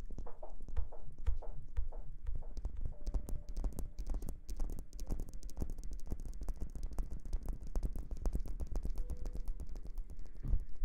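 Close-miked ASMR rustling: a dense, irregular run of small crackles and scratches.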